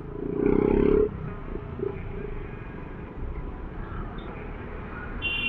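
Honda Click 125i scooter's single-cylinder engine running in slow traffic, a low steady rumble, broken near the start by a loud buzzy blare lasting under a second. A short high beep sounds near the end.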